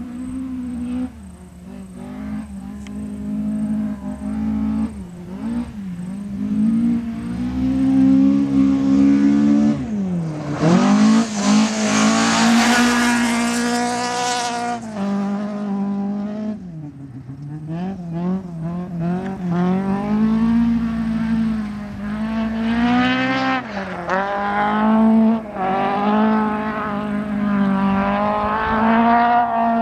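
Toyota Celica RA40 rally car driven hard: the engine is heard approaching, passing close about ten seconds in with a sudden drop in pitch, then carrying on further off, its pitch climbing and dropping again and again through gear changes and lifts.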